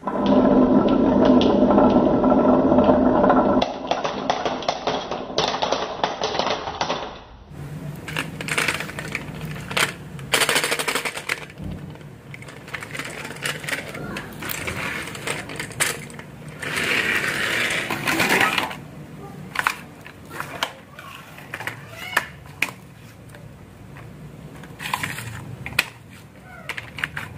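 Marbles and toy vehicles rolling and clattering down a marble-run track: a loud, steady rolling sound for the first few seconds, then from about seven seconds in, quieter scattered clicks and knocks.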